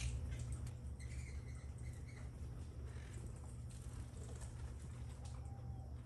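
Nanday and monk parakeets feeding at hanging seed feeders: scattered small clicks and taps from beaks and feet on the feeders, with a few faint short chirps, over a steady low hum.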